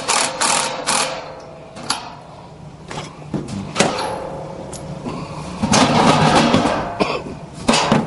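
Hand-tool work on a furnace blower assembly: scattered metal clicks and knocks as a socket extension works the blower wheel's hub set screw, then a longer stretch of scraping and rattling about six seconds in.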